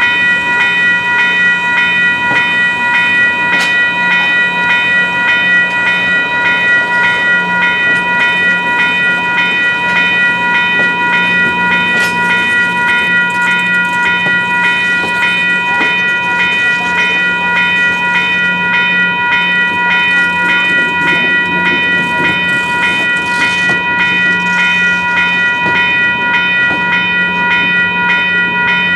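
Train running, with a bell ringing steadily at about three strikes every two seconds over a steady low hum.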